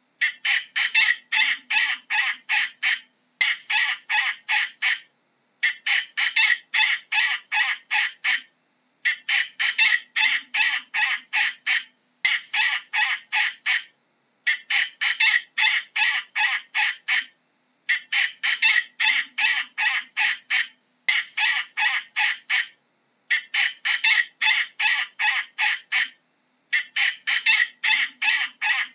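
Falcon calling a rapid, harsh series of repeated notes, about five a second, in bouts of one and a half to three seconds with brief pauses between.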